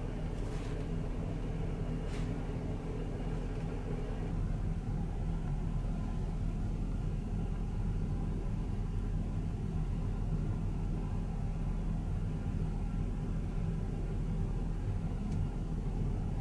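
Steady low rumble and hum of a sleeper train heard inside its compartment, with a couple of faint clicks in the first few seconds.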